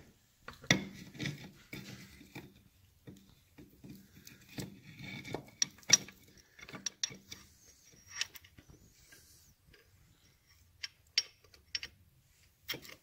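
Steel gears, shafts and the shift fork rod of a Triumph four-speed gearbox clicking and clinking against each other and the case as they are worked into place by hand. The clicks come irregularly, a few sharper knocks standing out about six seconds in and near the end.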